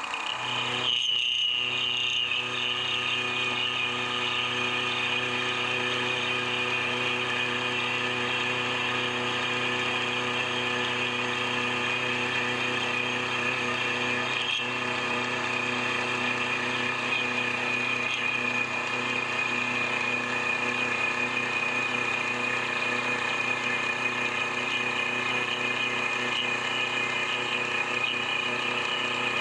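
Mini milling machine running, its end mill cutting along the edge of a metal base plate as the table is fed past it: a steady high whine from spindle and cutter.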